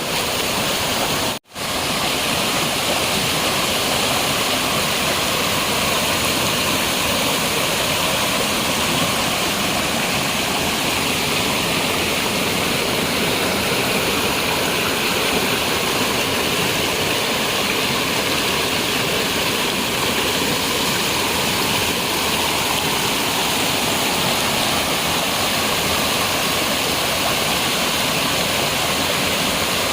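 Waterfall: a steady rush of water, with a momentary break in the sound about a second and a half in.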